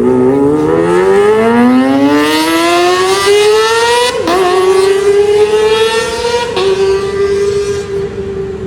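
Kawasaki ZX-25R's high-revving 250 cc inline-four engine through its exhaust, rising in pitch under acceleration for about four seconds. It dips briefly, then holds at high revs and slowly eases off.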